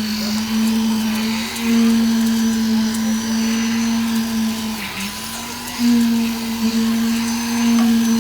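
A machine motor running at a steady, high hum. Its pitch dips briefly about five seconds in, as if under a moment of load, then recovers.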